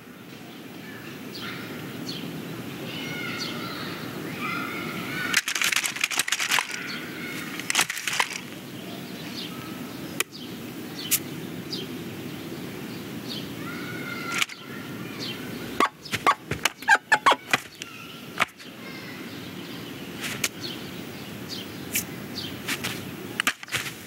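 Film sound-effects track with dialogue and music removed: a steady low room ambience with scattered plastic clicks and taps from the toy figures, and a quick run of clicks about two-thirds of the way through.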